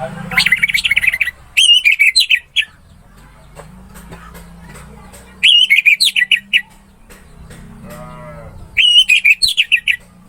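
Orange-headed thrush (anis merah) singing: four loud phrases of quick warbled notes, the first two back to back and the others a few seconds apart, over a low steady hum. A brief, lower, wavering call sounds in the background about eight seconds in.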